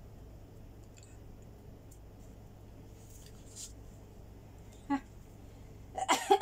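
Soft rustling of fabric as a light floral blouse is held up, shaken out and folded, over a low steady hum. Near the end comes a brief, louder vocal sound.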